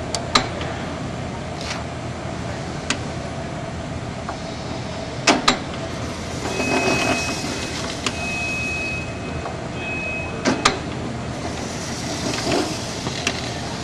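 Automatic apple peeling machine running: a steady mechanical hum, pairs of sharp clacks about every five seconds as it cycles, and a hissing whir as an apple spins against the peeling blade. A faint thin high tone sounds in the middle stretch.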